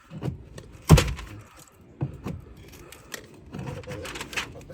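Siding being pried off a wall: a sharp knock about a second in, then scattered clicks and light rattling.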